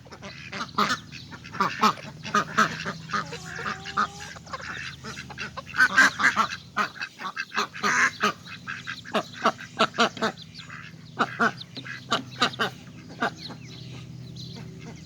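Domestic ducks quacking, many short calls from several birds overlapping in quick succession, thinning out near the end.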